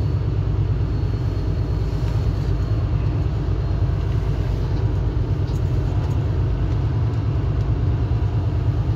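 Kenworth W900 semi truck's diesel engine running at low revs, heard inside the cab as a steady low rumble while the truck creeps forward.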